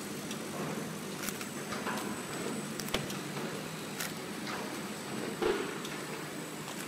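Transparent film overwrapping machine running, with a steady hum and repeated short clicks and knocks from its mechanism.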